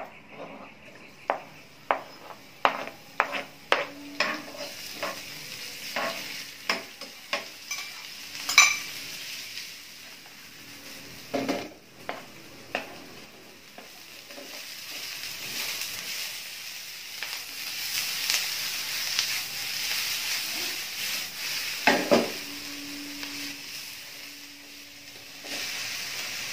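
Sliced vegetables and sausage stir-frying in oil in a non-stick frying pan: sizzling, with sharp taps and scrapes of a metal slotted spatula against the pan. A rapid run of taps comes in the first several seconds, and the sizzle grows louder in the second half.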